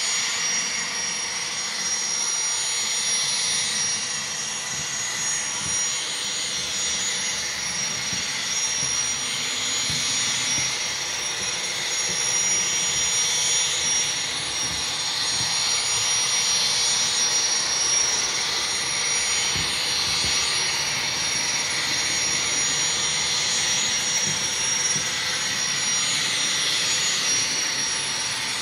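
Steady jet-like rush with a thin high whine: the running sound of a Union Pacific 'Verandah' gas-turbine locomotive, reproduced for the model train.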